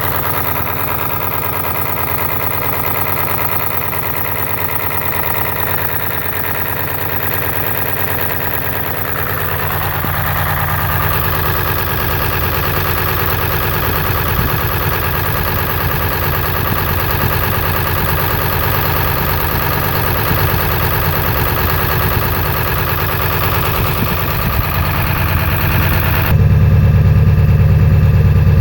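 A 7.3-litre V8 diesel engine idling, a rough idle that comes with blow-by. About 26 seconds in the sound suddenly becomes louder and more muffled.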